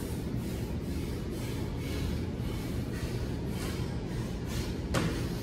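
Steady low mechanical hum in a steel-walled room, with a sharp thud from the man doing burpees about five seconds in.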